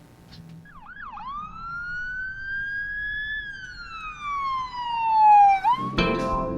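A siren wailing once: a single tone that rises slowly for about two and a half seconds, falls for about two more, then sweeps quickly back up. Keyboard music starts near the end.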